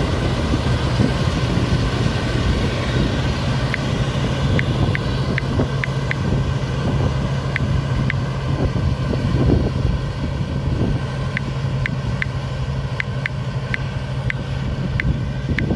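A farm machine's engine running steadily with a constant low hum. Short high ticks come at irregular intervals from about four seconds in.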